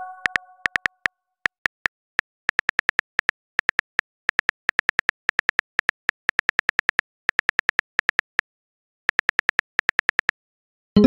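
Typing sound effect: quick keyboard clicks in short runs, several a second, with brief pauses between runs. It opens on the fading tail of a message chime.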